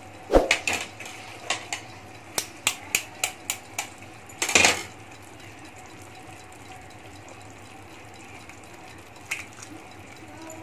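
Sharp clicks and taps of utensils and eggshell against a frying pan: a loud knock, then a quick run of about four taps a second, then a short scrape halfway through. After that comes a faint single tap as a raw egg is cracked over the pan.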